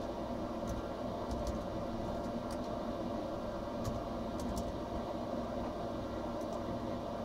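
Small CNC machine running: a steady mechanical hum with a few faint, irregular ticks.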